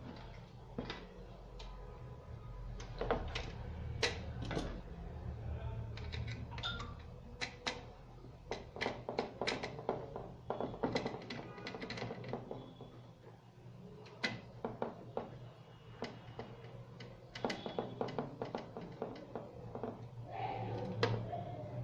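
Scattered light clicks and knocks of a hard disk drive being handled and fitted into a DVR's open metal case.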